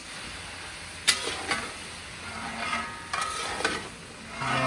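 Mutton frying in spiced oil in a large iron kadhai, sizzling steadily while a long metal ladle stirs it, with a few scraping clinks of the ladle against the pan.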